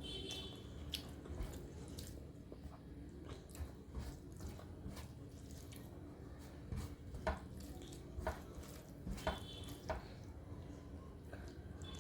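Close-up eating sounds of rice with dal: scattered wet mouth clicks and smacks over chewing, with a few louder smacks in the second half.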